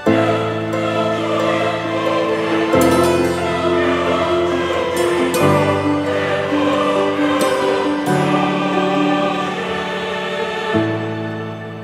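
Background music: slow, held chords that change about every three seconds.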